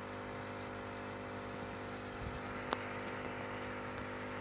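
A cricket chirping steadily in rapid, even pulses over a low steady hum, with one faint tick about two and a half seconds in.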